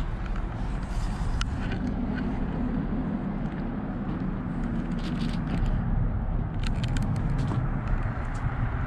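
Steady low rumble of passing road traffic, with scattered light clicks that come thickest in the second half.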